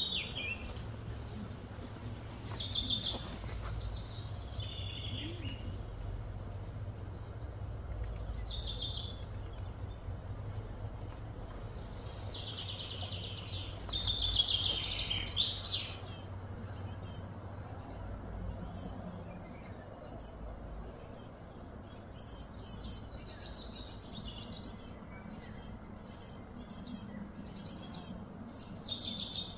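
Birds chirping and singing repeatedly, with a busy run of whistled phrases in the middle and rapid high ticking later on, over a steady low hum.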